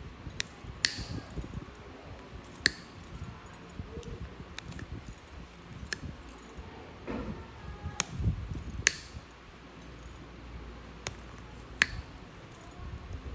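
Metal blade paring a thick, fungus-infected toenail: sharp clicks every second or two as pieces of nail cut and break away, over soft scraping and handling noise.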